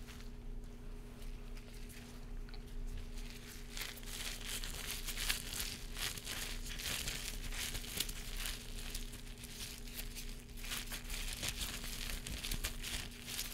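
Blue disposable exam gloves crinkling as gloved hands rub and handle them close to the microphone: a dense run of small crackles that gets busier a few seconds in.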